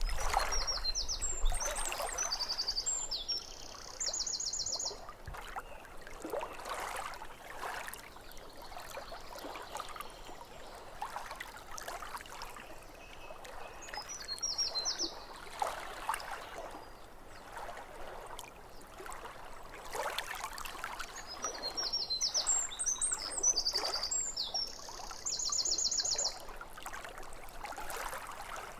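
Lake water lapping at the shore in irregular soft splashes, with a songbird singing three short phrases, the first and last ending in a fast, even trill.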